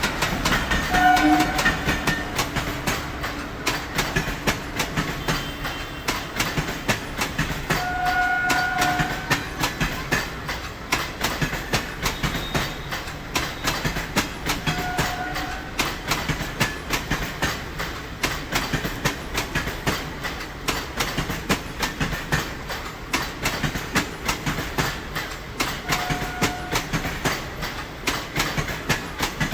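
Indian railway train running, its wheels clattering over the rail joints in a steady, rapid clickety-clack. A few short horn sounds come through, the longest about eight seconds in.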